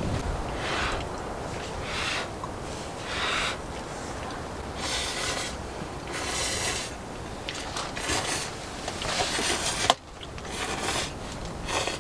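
Instant ramen noodles being slurped from a bowl, in a series of short slurps a second or so apart.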